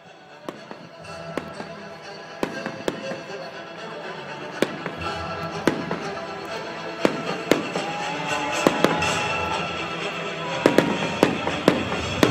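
Fireworks display: frequent sharp bangs and crackles of shells bursting, over music that grows steadily louder.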